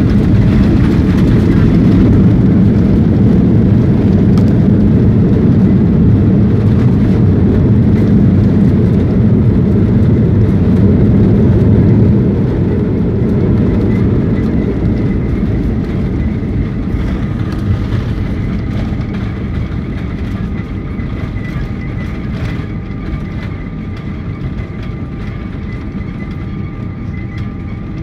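A jet airliner on its landing roll, heard from inside the cabin: a loud, even rumble of engines and wheels on the runway that falls away steadily after about twelve seconds as the plane slows, leaving a quieter steady engine whine.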